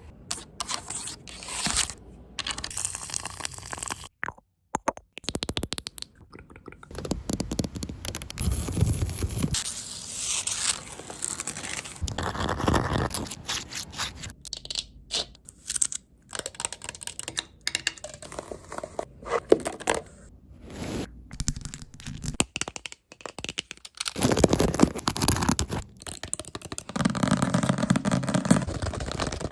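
A quick-cut medley of close-miked ASMR trigger sounds: scratching, scraping and crunching on various objects, switching abruptly every few seconds with brief gaps at the cuts.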